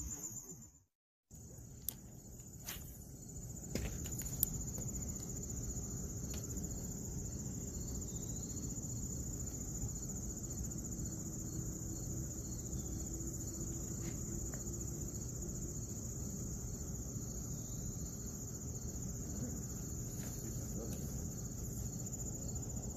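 Steady high-pitched chorus of insects singing without pause, with a brief cut-out about a second in and a few light clicks in the first few seconds.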